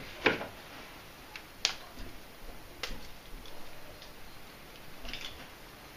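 A few sharp light clicks and taps, three of them clearly heard over several seconds, like small objects being handled.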